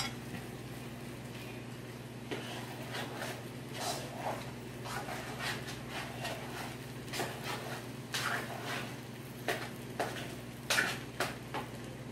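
Cooking utensils clattering and scraping against pots and pans on a gas stove in irregular knocks, several louder clanks in the second half, over a steady low hum.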